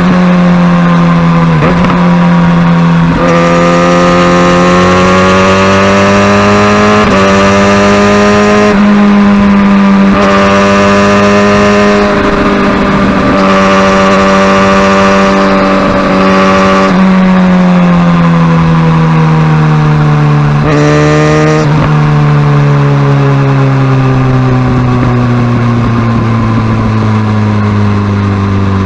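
Kawasaki Ninja ZX-6R's inline-four engine under way: its pitch climbs in several stretches, each cut short by a brief drop as it shifts up a gear, then falls steadily as the bike slows, with a quick blip of the throttle about two-thirds of the way through.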